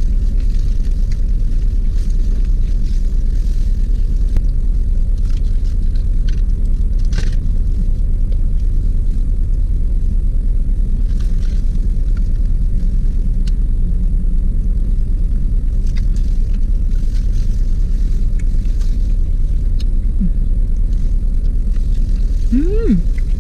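Steady low rumble of a car engine idling, heard from inside the cabin, with scattered faint crinkles and clicks of a plastic glove and food wrapping over it.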